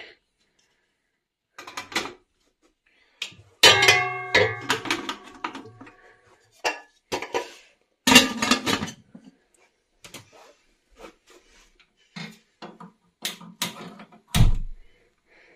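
Metal tiered steamer pot and its lid clanking as they are set on a gas stove and closed. The loudest knock, about four seconds in, leaves the metal ringing for a moment; more clatters follow around eight seconds in, and a short low thump comes near the end.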